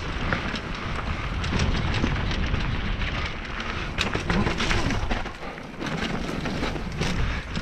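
Mountain bike descending a rough dirt singletrack at speed: wind rumbling on the camera microphone over tyre noise on dirt and dry leaves, with frequent clicks and knocks as the bike rattles over bumps, one sharp knock about four seconds in. The rush drops briefly just after five seconds.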